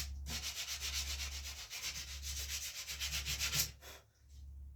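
Hand sanding with sandpaper on a rubber sanding block along the tip of a wooden bow: quick, even back-and-forth scratching strokes that pause about a second before the end.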